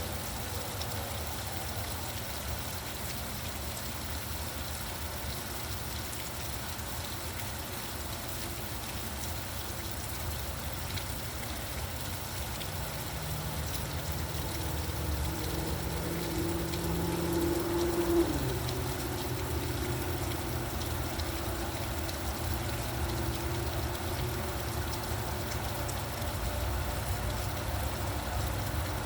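Steady rain hissing, with road traffic going by. A passing vehicle's hum builds, is loudest about 18 seconds in, and drops in pitch as it goes past.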